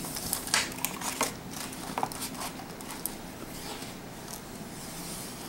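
Cardboard gift box opened by hand, its lid lifted off: a few light clicks and rustles of cardboard and plastic packaging in the first couple of seconds, then faint handling noise.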